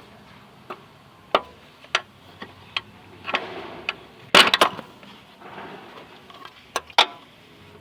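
Hand tools clicking and knocking on metal during car repair work: scattered single clicks, with a quick cluster of loud knocks about halfway through.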